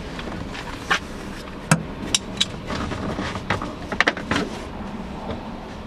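Hard plastic interior trim clicking and knocking as the pillar trim panel and its retaining clips are worked by hand. The sound is a string of irregular sharp clicks, about eight, between one and four and a half seconds in.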